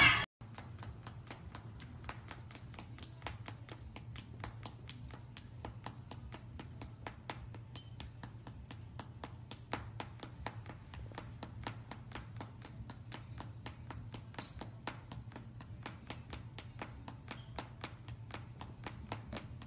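A cat's yowl cuts off at the very start, followed by faint, even clicking about four times a second over a low steady hum. One brief high squeak comes about two-thirds of the way through.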